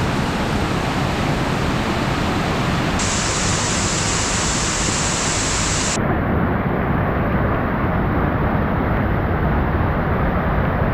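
Steady rushing roar of falling water, even and loud, with no pitch or rhythm; it turns brighter about three seconds in and duller about six seconds in.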